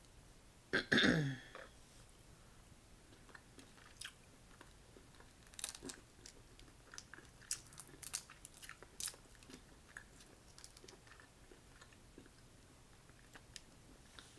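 Boiled crawfish being peeled by hand and eaten: scattered sharp cracks, clicks and crunches of shell and meat. About a second in there is one short throaty vocal sound that falls in pitch.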